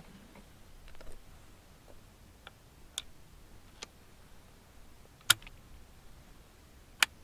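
Martini-Henry rifle being reloaded as a .577/450 cartridge is chambered: a few faint clicks, then two sharp clicks in the second half, under two seconds apart.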